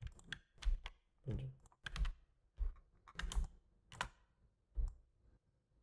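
Computer keyboard keys clacking in short irregular clusters, a dozen or so presses, stopping about five seconds in.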